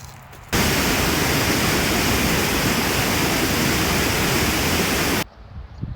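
Loud, even rush of wind on the microphone, starting abruptly about half a second in and cutting off suddenly about a second before the end.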